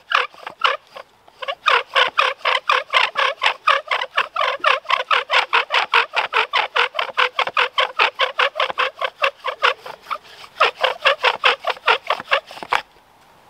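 Bow drill worked fast to raise an ember: the wooden spindle squeaks with every stroke of the bow, several squeaks a second. There is a brief pause about a second in, and the squeaking stops suddenly near the end.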